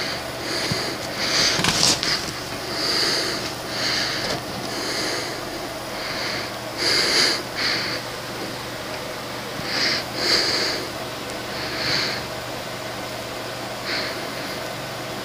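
Short breathy sniffs, about a dozen at irregular intervals of one to two seconds, the loudest about two, seven and ten seconds in. Under them runs a steady hiss with a faint low hum.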